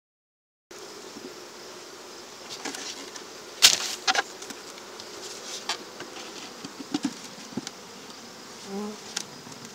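Honeybees buzzing steadily around open mating nucs, with a few sharp clicks and knocks, the loudest about three and a half seconds in. The sound starts abruptly a moment in, after dead silence.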